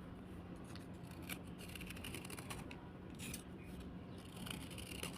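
Slate being scraped in short, crisp, scratchy strokes that come irregularly, a few sharper ones standing out, over a faint steady hum.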